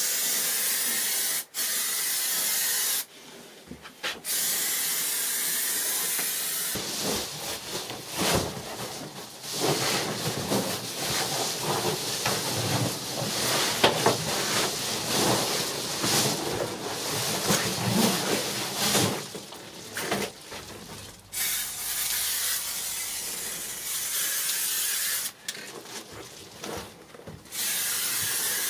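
Aerosol spray adhesive hissing in several long bursts that start and stop abruptly, some near the start and more in the last third. In the middle stretch, foil-faced bubble insulation crinkles and rustles as it is handled.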